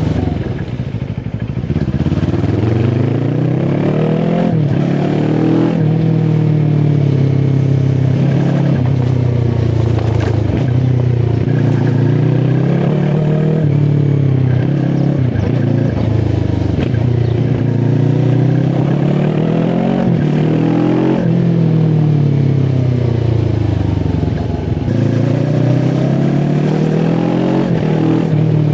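QJ SRT 450 RX motorcycle engine pulling through the gears: the engine note climbs under throttle and drops at each gear change, over and over, with the throttle briefly rolled off near the start and again about 25 seconds in.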